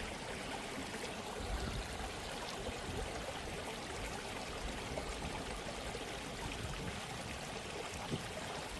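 A steady, even rushing noise with no distinct calls or tones.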